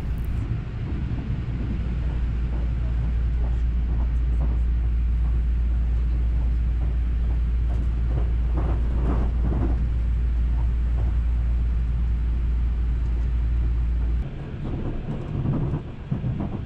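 Haruka limited express train running at speed, heard from inside the passenger car: a steady low rumble that drops away sharply about fourteen seconds in, leaving a lighter rattle and rumble.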